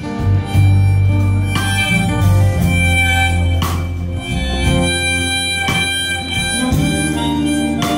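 Live band playing: a harmonica plays held lead notes into the vocal microphone over acoustic guitar and drums.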